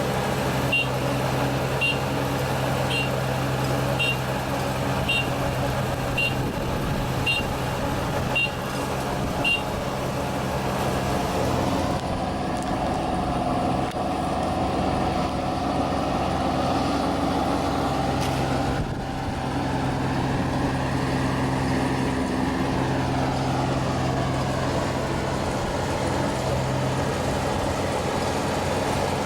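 ISEKI 325 rice combine harvester running steadily under load, its engine hum constant. A short high warning beep sounds about once a second and stops about a third of the way in.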